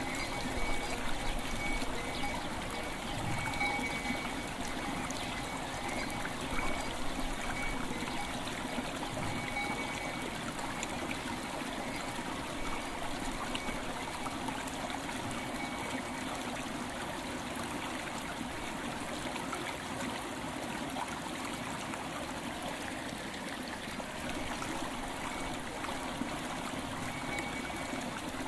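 A river flowing steadily, with faint bell tones ringing now and then and fading away.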